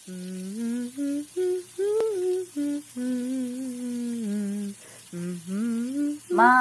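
A woman humming a slow tune with her mouth closed, in a string of held, gently wavering notes. A higher voice starts calling out right at the end.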